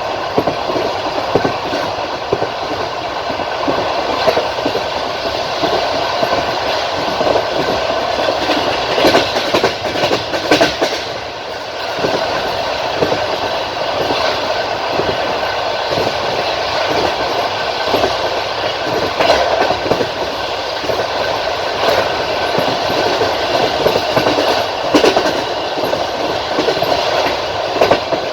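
Passenger train coach rolling along the track, with a continuous rumble of wheels on rail and the clickety-clack of the wheels striking rail joints every few seconds.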